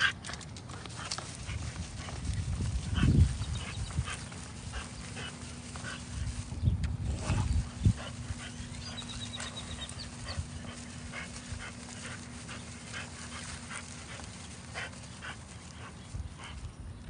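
French bulldog sniffing and breathing as it noses through grass, with louder snuffles about three and seven seconds in.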